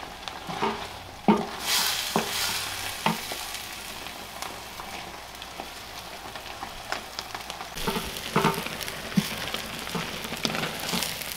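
Ground meat and diced potatoes frying in a hot clay cazuela as sliced onion is scraped in and stirred with a wooden spoon: a steady sizzle that swells now and then, with scattered knocks of the spoon against the pot.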